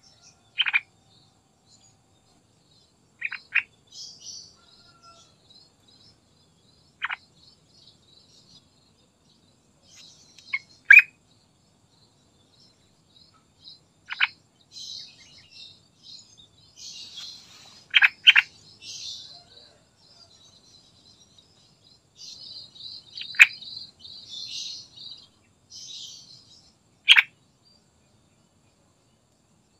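Yellow-vented bulbul (trucukan) calling: loud, sharp notes that sweep down in pitch, singly or in quick pairs every few seconds, over a quieter, higher twittering chatter.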